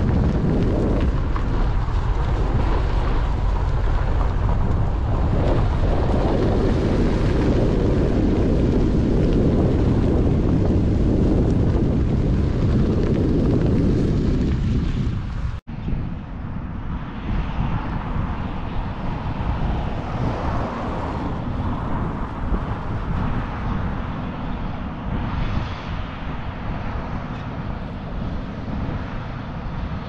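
Heavy wind buffeting on the microphone over the rumble of a moving vehicle. About halfway through it cuts off abruptly and gives way to a quieter, steady machine rumble.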